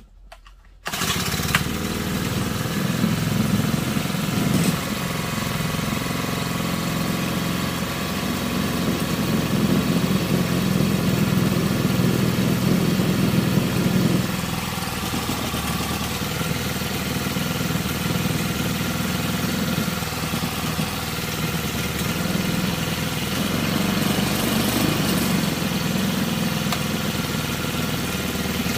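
Small brush-cutter-type engine starting about a second in, then running steadily; its note shifts and drops slightly about halfway.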